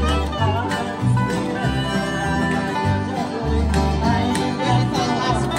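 Live acoustic bluegrass jam: strummed acoustic guitars, plucked upright bass in a steady beat, resonator guitar and mandolin, with a harmonica playing a wavering, bending lead line over them.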